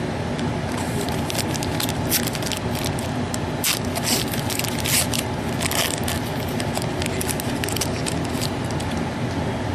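Trading cards and their packaging being handled: a run of quick crackles and scrapes as cards slide against each other and the wrapper crinkles, thickest in the middle, over a steady background hum.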